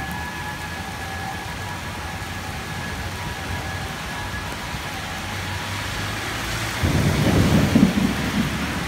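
Heavy rain pouring down in a steady hiss. About seven seconds in, a sudden loud low rumble of thunder lasts a second or two.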